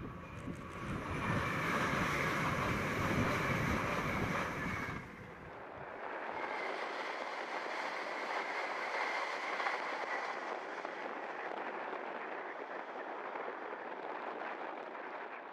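TransPennine Express Class 802 bi-mode train passing at speed: a steady rush of wheels and air with a high whine. Wind buffets the microphone for the first few seconds, and the sound fades near the end as the train draws away.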